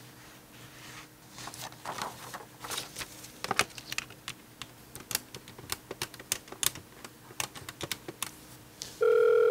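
Desk telephone keypad buttons being pressed in an irregular run of plastic clicks as a number is keyed in. Near the end a steady telephone ringing tone starts in the handset.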